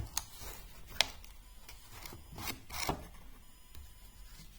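A red Starrett tool case being opened and its tool handled: a sharp click about a second in, a few lighter clicks, and rubbing and scraping a little before three seconds in.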